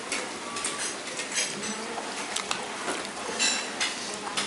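Metal spoon clinking against a soup bowl and a rice plate as beef soup is ladled onto rice: a few sharp clinks, two close together near the end.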